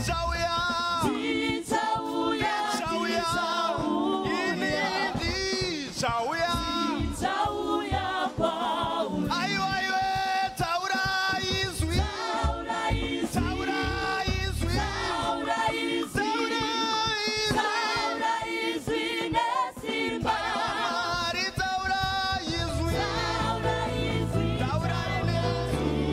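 Choir singing a gospel song, mostly a cappella, with a low bass accompaniment coming back in near the end.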